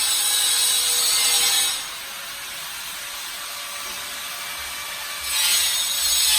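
A power tool cutting with a steady, harsh hiss. It stops about two seconds in and starts again a little after five seconds.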